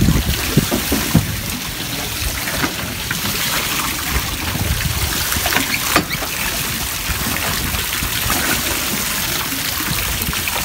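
Steady splashing and trickling water, with a few sharp knocks.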